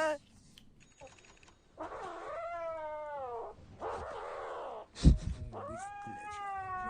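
A cat yowling in long drawn-out meows: one about two seconds in, a hoarse noisy stretch after it, and another starting just after five seconds. A single sharp knock about five seconds in is the loudest sound.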